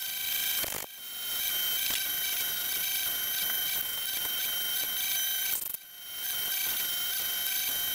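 Ridgid oscillating edge belt sander running, with a small wooden box held against the moving belt to sand its faces: a steady whine over a gritty hiss. The sound drops away briefly twice, about a second in and near six seconds, then comes back up.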